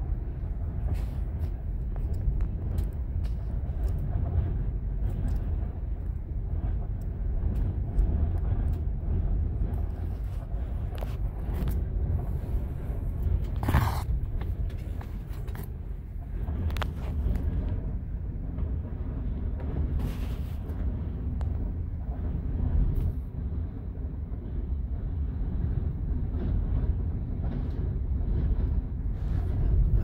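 Strong gusting wind buffeting a vehicle cab, heard from inside as a heavy, uneven low rumble, with a few brief louder rushes around the middle.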